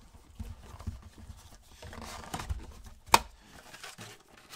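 A cardboard trading-card blaster box and its wrapped packs handled with gloved hands: rustling and scuffing of cardboard and foil wrappers, with one sharp click about three seconds in.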